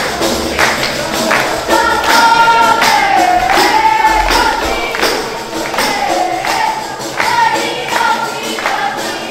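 Wedding dance music on defs, frame drums with jingles, beaten in a steady rhythm, with a high melody sung over them that wavers and is held for long notes.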